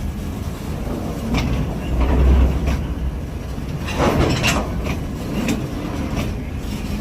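A train of oil tank wagons rolling past, its wheels clacking over rail joints at uneven intervals over a steady low rumble.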